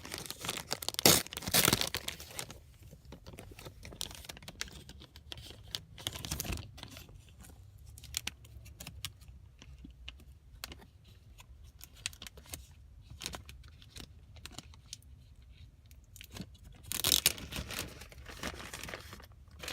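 Small parts packaging being opened and handled: rustling and crinkling with scattered light clicks, loudest in bursts about a second in and again near the end.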